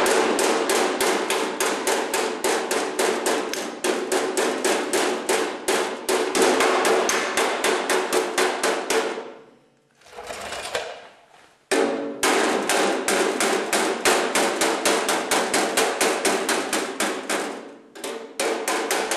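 Body hammer striking a tractor's dented steel fender against a dolly, in rapid even blows of about five a second, with a pause of a couple of seconds near the middle and a shorter one near the end. A ringing note from the sheet steel sits under the blows as the dents are beaten out.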